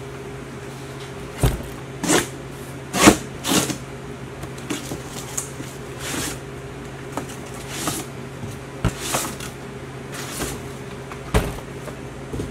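A cardboard box set down on a table and opened, then plastic gallon jugs lifted out and set down: a string of separate knocks and cardboard rustles, the loudest about three seconds in, over a steady low hum.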